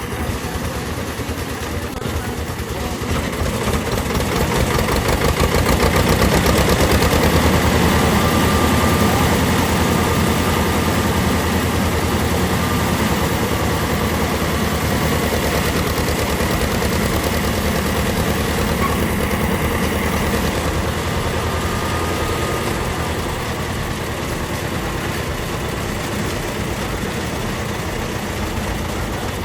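Diesel engine of construction machinery running steadily through the slab concreting, growing louder over the first several seconds and then easing off slightly.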